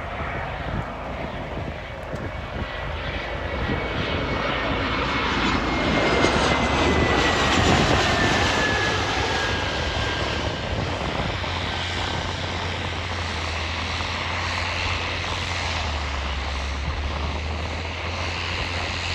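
Boeing 717's two rear-mounted Rolls-Royce BR715 turbofans on final approach. The jet noise swells to its loudest about seven seconds in as the aircraft passes, with a high engine whine that slides slowly down in pitch as it goes by. After that it settles to a steady rumble.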